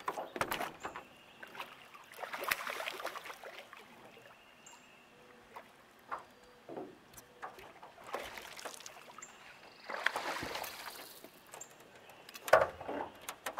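Water splashing and sloshing in irregular bursts beside a small boat as a hooked catfish is hauled in on a trotline, with a few sharp knocks.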